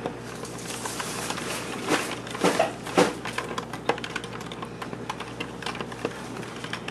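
Spoon stirring a thin sauce in a plastic container, making a quick run of light clicks and taps against the sides, with a few louder knocks about two to three seconds in.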